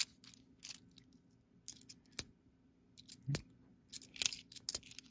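Quarters clicking and scraping against one another as a stack of them is handled and slid apart in the fingers: a scatter of short metallic clicks, busiest from about three seconds in.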